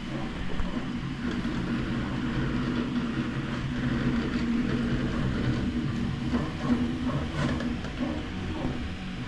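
Three 3D printers running the same job in sync, their stepper motors whirring in steady tones that shift in pitch every moment as the print heads move.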